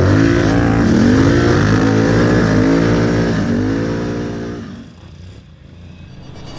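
Can-Am Renegade XMR 1000R ATV's V-twin engine revving, its pitch rising and falling several times, then fading away about five seconds in.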